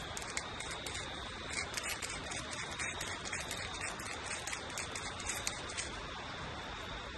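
Seasoning shaken from a shaker over a raw ribeye steak: a rapid run of light rattling ticks lasting about five seconds, over a steady high whine.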